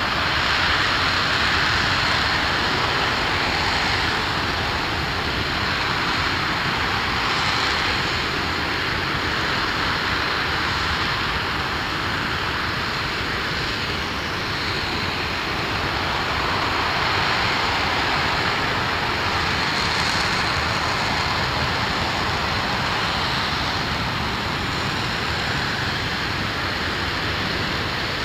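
RS-25 liquid-hydrogen/liquid-oxygen rocket engine firing steadily during a hot-fire test: a loud, continuous rushing noise that holds even throughout.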